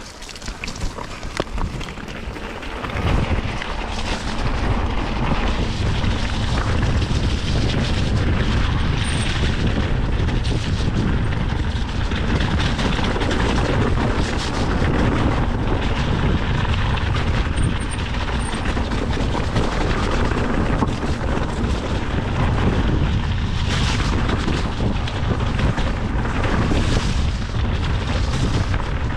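Mountain bike rolling fast down a rough dirt and gravel trail: continuous tyre noise and wind rumble on the camera microphone, with frequent short knocks. It gets louder about three seconds in as the bike picks up speed.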